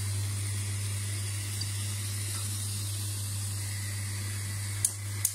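Diced guanciale frying slowly in a small pan on a gas hob: a steady sizzle over a steady low hum. Two sharp clicks come near the end.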